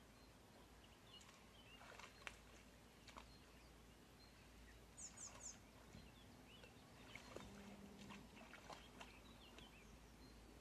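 Near silence with faint outdoor ambience: small birds chirping now and then, with three quick high descending calls about five seconds in, and a few soft clicks.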